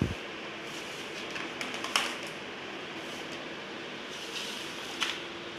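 Hollow plastic table legs clicking and knocking against a plastic table top as they are handled and pushed into its corner sockets, with a louder knock about two seconds in and another about five seconds in, over a steady background hiss.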